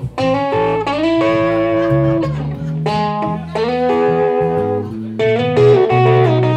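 Electric guitar playing a blues-rock lead solo of sustained, bent notes over an electric bass line.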